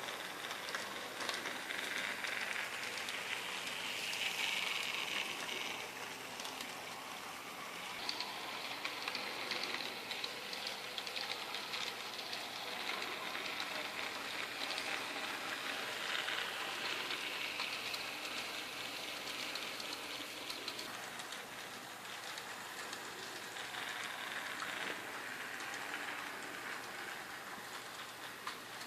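Model train running on a model railway track, hauling 3D-printed container wagons: a steady rolling rattle of small wheels with fine rapid clicks, swelling and fading several times as the train comes near and moves away.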